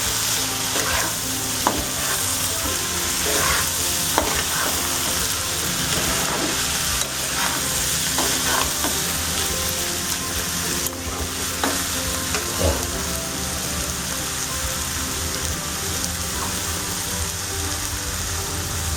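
Banana flower and masoor dal frying in a karahi, sizzling steadily while a spatula scrapes and knocks against the pan as they are stirred. The knocks thin out after about thirteen seconds, leaving the sizzle.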